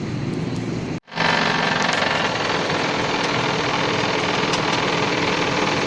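Suzuki APV radiator cooling fan running with a rough, snoring growl ('ngorok'), the kind of noise that calls for the fan and its motor to be checked. The noise breaks off for an instant about a second in, then carries on louder and steady.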